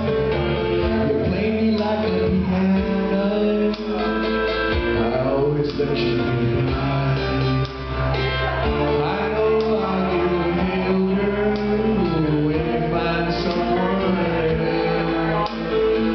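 Country band playing live: guitars and bass carrying a melody, with a male voice singing.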